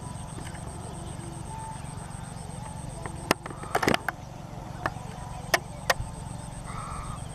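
Steady low outdoor rumble with a faint steady high tone, broken about halfway through by a handful of sharp clicks in quick succession, then a short faint call near the end.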